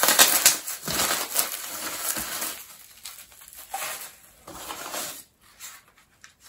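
Cardboard shipping box and the plastic packing wrap inside it being handled, crinkling and rustling. The crinkling is loudest in the first two and a half seconds, then comes in a few quieter bursts.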